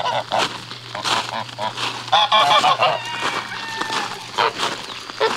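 A small flock of white domestic geese honking, a run of short, repeated honks that is loudest and densest about two seconds in.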